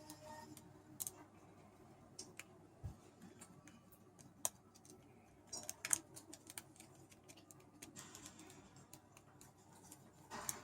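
Faint, irregular metallic clicks and scrapes of a hook pick working the pins inside a dimple bike cable lock during lock picking.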